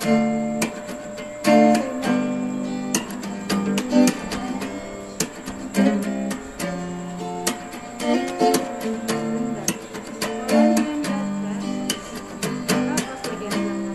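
Instrumental background music of plucked string notes in a steady, picked melody.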